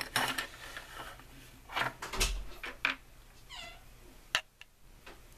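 Sewing-machine accessories being moved and set down on a wooden table: scattered clicks, knocks and rustles, with a dull thump about two seconds in. Midway through, a short cry that falls in pitch.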